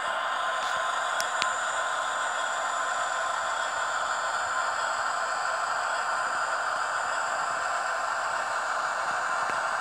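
H0-scale Rivarossi FS E402 model electric locomotive running slowly, its sound decoder playing a steady electric-locomotive hum through a small onboard speaker, with a couple of faint clicks about a second in.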